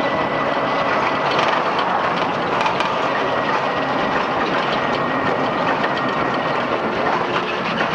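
Ride noise from the passenger seat of an open three-wheeler on a rough road: a steady rushing of the moving vehicle with the body rattling and clicking, and a thin steady whine underneath.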